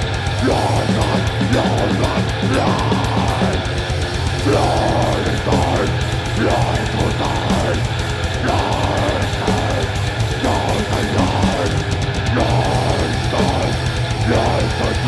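Death metal band playing live: heavily distorted electric guitars and bass over fast, dense drumming on a full drum kit.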